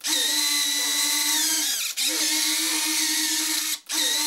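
Electric retractable landing gear of an FMS 70mm EDF F-16 model cycling up and down. The retract motors run with a steady high whine in stretches of about two seconds, breaking off briefly twice as each leg reaches the end of its travel and reverses.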